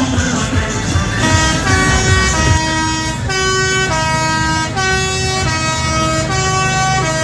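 A musical horn playing a tune in single held notes, starting about a second in, over the steady low running of a New Holland TS115 tractor's diesel engine.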